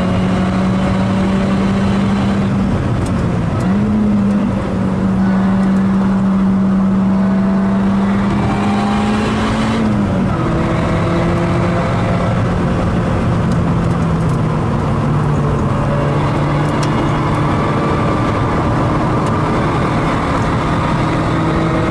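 Lotus Elise four-cylinder engine heard from inside the cabin, running hard under load at a steady high pitch. The note dips briefly about four seconds in and steps down about ten seconds in, then slowly sinks.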